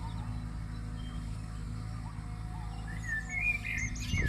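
Birds chirping over a steady low mechanical hum; the chirps grow busier near the end.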